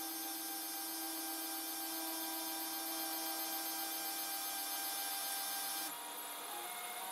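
3D printer running: its stepper motors whine on several steady tones over the hiss of its cooling fans. About six seconds in the sound drops and the motor tones begin stepping from pitch to pitch as the print head changes its moves.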